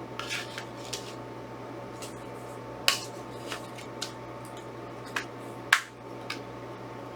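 Hands handling a plastic Blu-ray case and its paper inserts: scattered light clicks and taps, with two louder sharp snaps, one about three seconds in and one near six seconds, over a steady electrical hum.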